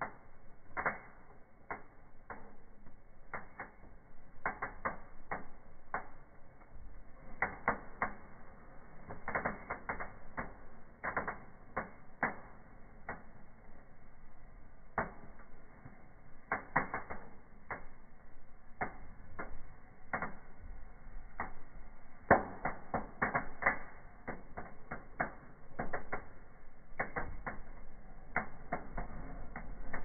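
Burning conifer branches in a fireplace crackling and popping: irregular sharp snaps, sometimes several in quick succession, over a faint steady fire noise.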